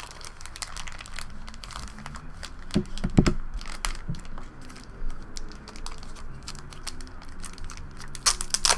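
Clear plastic bag and sleeve around a trading card crinkling as they are handled and the card is slid out, with many light clicks and crackles. A soft knock comes about three seconds in, and a louder crinkle near the end.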